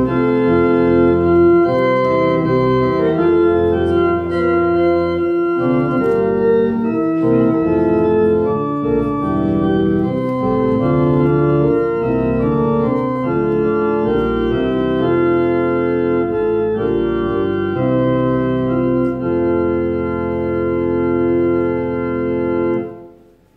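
Church organ playing slow, sustained chords that change every second or so, dying away near the end.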